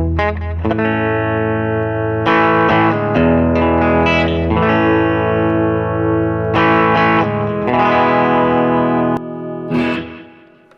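Electric guitar played through a Catalinbread Belle Epoch Deluxe tape-echo pedal: ringing chords and notes with echo repeats trailing behind them, dying away near the end.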